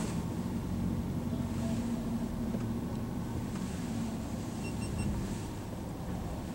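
Road noise and engine hum inside a moving car's cabin: a steady low rumble with faint engine tones that drift in pitch. Three quick faint beeps about five seconds in.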